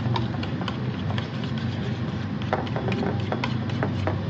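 Steel spoon stirring a thick yogurt marinade in a stainless steel bowl, clicking and scraping irregularly against the metal, over a steady low hum.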